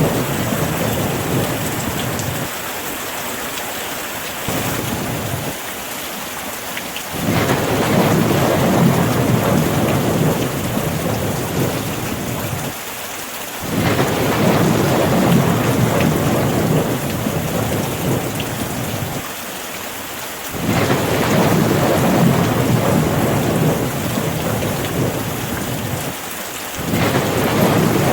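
Steady rain with deep, rolling rumbles of distant thunder that swell and fade, dropping away four times so that only the rain hiss is left.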